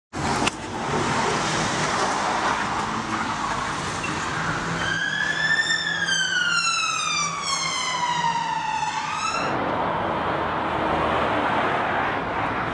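Police car siren sounding as the car passes, one long wail that rises briefly then falls for about three seconds and cuts off suddenly. Steady street traffic noise runs underneath.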